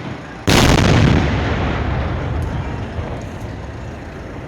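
A single loud fireworks shot fired at close range, a sudden blast about half a second in, with a deep rumbling tail that dies away over a couple of seconds.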